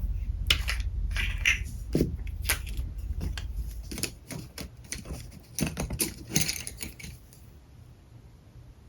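Clicks and clatter of alcohol markers being handled, plastic caps and barrels knocking: a dozen or so sharp clicks, some in quick clusters, that stop about seven seconds in. A low hum sits under the first half and then fades.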